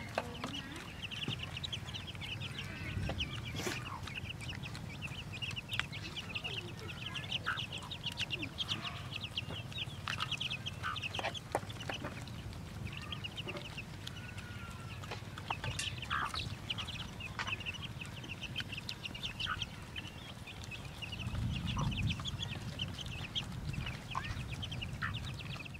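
A hen clucking while her chicks peep continuously, with scattered clicks and taps from beaks and muzzles feeding at a metal plate.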